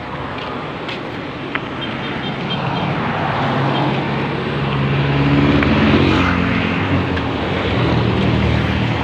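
A motor vehicle's engine running close by, growing louder through the middle and loudest about six seconds in, over steady street traffic noise.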